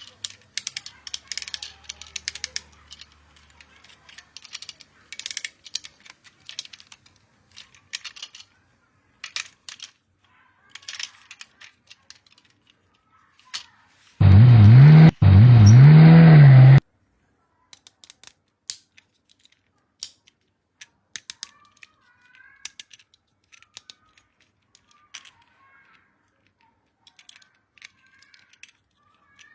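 Small plastic clicks, taps and rustles from toys and packaging being handled, the sort of sounds an unboxing makes. About halfway through, a toy's built-in sound chip plays a loud electronic effect for about two and a half seconds, its pitch warbling up and down like a siren, with a short break in the middle, and then it cuts off suddenly.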